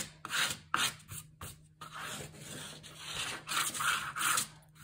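Bone folder rubbing back and forth over freshly glued decorative paper, burnishing it down onto a book cover board: a run of quick scrubbing strokes, then a longer, steadier stretch of rubbing.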